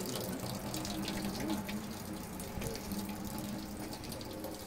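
Steady rush of running water, with faint low tones underneath.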